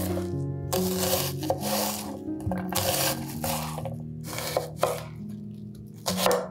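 Repeated rasping strokes of hand food preparation in a kitchen, about one a second, over soft background music with held notes.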